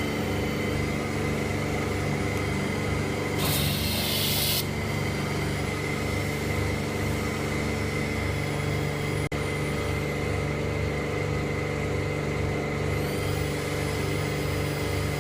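Twin-pump cold-water pressure washer running steadily with a constant motor and pump hum. A brief burst of spray hiss comes about three and a half seconds in, and the sound breaks off for an instant a little past nine seconds.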